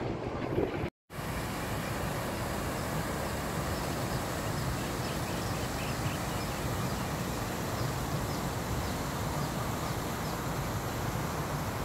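Steady outdoor background noise with faint, repeated high-pitched chirps. Before it, wind buffets the microphone and the sound cuts out briefly about a second in.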